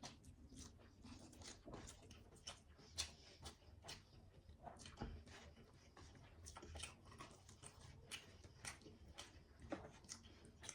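Quiet, irregular chewing and small clicking mouth sounds of a person eating.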